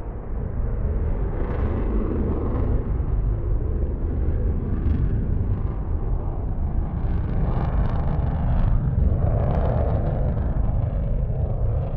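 Military jet engine rumbling deep and steady, heard from about two kilometres off, with crackling that comes and goes over it.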